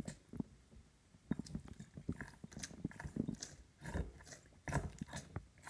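Faint, irregular wet squishing and gurgling from a homemade heart model: a balloon membrane stretched over a jar is pressed again and again, forcing red-coloured water and air through the straws.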